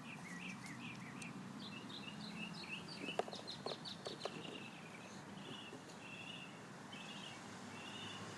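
Faint bird chirping, a quick run of short high notes repeated throughout, with a few light clicks about three to four seconds in as the seat buckle is handled.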